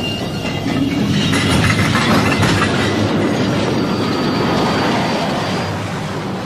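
A train rolling along the rails, wheels clattering, with a faint thin squeal. The sound grows louder about a second in and slowly fades toward the end.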